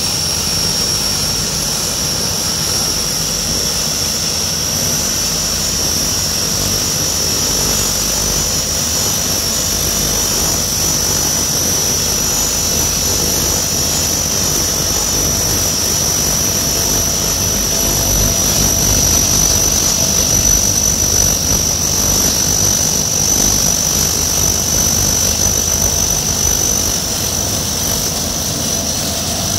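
Convair 580's Allison turboprop engines running as the aircraft taxis: a steady high turbine whine over a low propeller drone. It grows louder a little past halfway through as the plane passes by.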